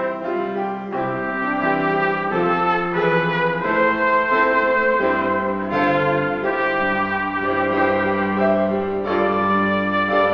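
Instrumental music with a brass-like tone: slow, held chords that change about once a second.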